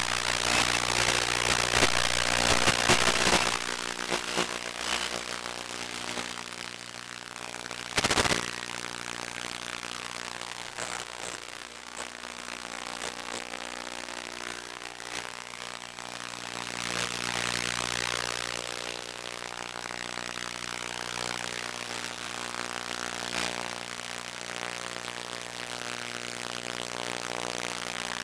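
Small multirotor's brushless motors (Turnigy D2830 1000kv) and 8-inch propellers whirring with rushing air, over a steady electrical buzz. Louder for the first three seconds or so, with a brief loud thump about eight seconds in.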